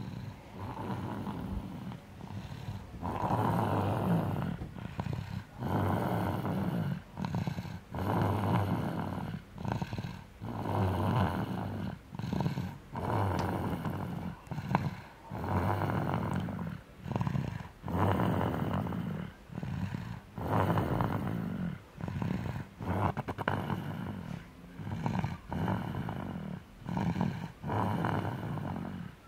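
Snoring in sleep, rhythmic and regular: a longer snore on one breath and a shorter one on the next, a full breath about every two seconds.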